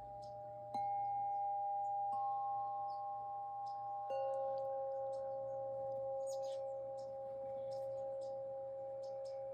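Singing bowls struck and left to ring, their long steady tones overlapping. Fresh strikes come about a second in, near two seconds and around four seconds, each at a different pitch, the new one ringing loudest.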